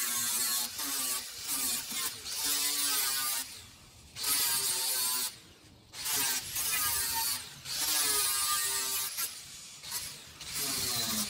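Handheld power grinder deburring the cut edges of an aluminum truck ramp: a motor whine rising and falling in pitch as it bites into the metal and eases off, over a hiss of grinding. It lets off briefly twice near the middle.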